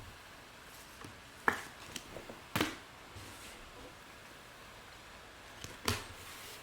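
Trading cards being handled on a table: a few sharp taps and brushing slides as cards are set down and sorted, the loudest about one and a half, two and a half and six seconds in.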